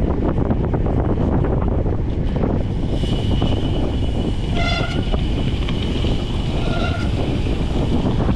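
Wind buffeting the microphone of a chest-mounted camera on a gravel bike ride, with the tyres rolling over gravel. About halfway through come two short, high-pitched toots about two seconds apart.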